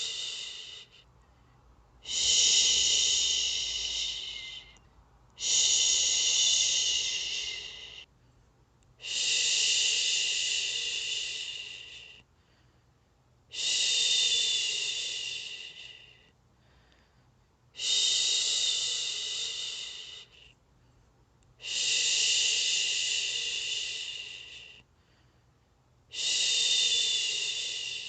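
A person's voice making long 'shhh' shushing sounds, each about three seconds long, starting sharply and fading away, repeated about every four seconds, seven times. It is a rhythmic shush for soothing a baby to sleep.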